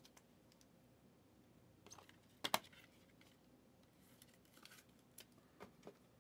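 Faint handling of a trading card and clear plastic card holders: a few light clicks and taps, the loudest a quick double tap about two and a half seconds in, with small ticks near the end.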